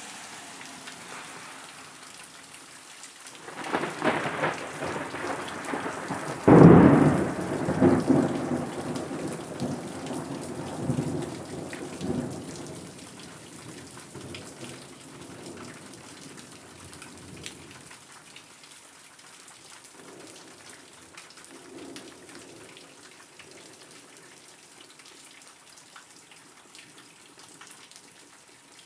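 Steady rain falling on leafy trees, with a peal of thunder that starts about four seconds in, cracks loudest a few seconds later, and rumbles away over the next ten seconds or so.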